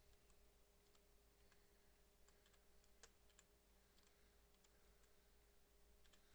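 Faint, slow keystrokes on a computer keyboard, single irregular clicks about every half second as a command is typed one key at a time, over a faint steady hum.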